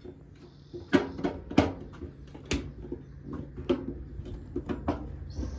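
Screwdriver and hands working on a rusty steel fluorescent light fixture as its screws are loosened: scattered sharp clicks and knocks of tool on metal, the loudest about a second in and again half a second later.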